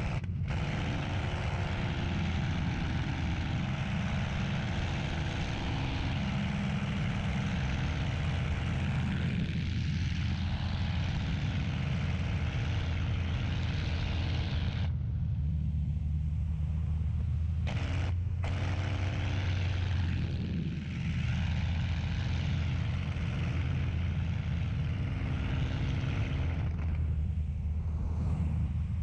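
P-51 Mustang's Packard Merlin V-12 engine and propeller running steadily, heard from inside the cockpit in flight. The hiss above the engine drops away briefly twice, about halfway through and near the end.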